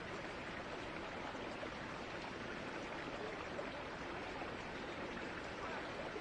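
Steady outdoor rushing noise with no distinct events, even in level throughout.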